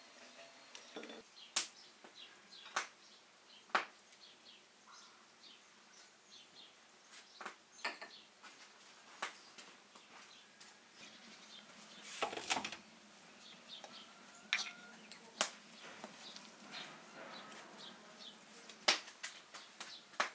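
Scattered sharp clicks and taps of hands working with food and kitchenware, such as chestnut shells and a spoon against a small bowl, with faint bird chirps throughout.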